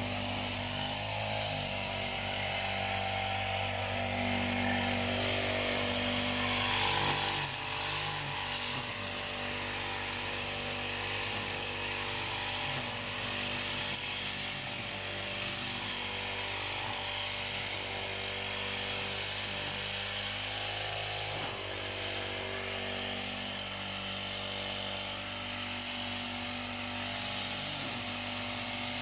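Petrol brush cutter running steadily as it cuts grass. Its engine note climbs to a peak about seven seconds in, then drops back.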